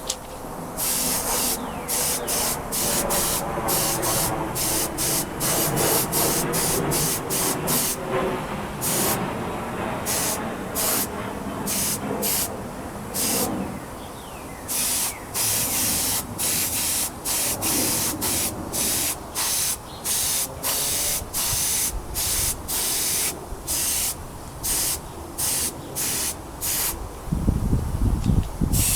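A paint spray gun lays clear coat on a motorcycle wheel in a quick run of short hissing bursts, about one a second, as the trigger is pulled and released on each pass. A low rumble comes near the end.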